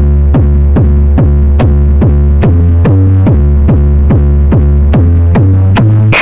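Loud electronic music built on a deep bass note that pulses about two and a half times a second, with a click on each beat, played through a car sound system.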